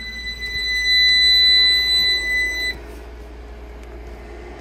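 One long, steady, high-pitched electronic beep from the inverter-charger, about three seconds long, sounding as AC power is plugged in, then cutting off sharply. A steady low hum continues underneath.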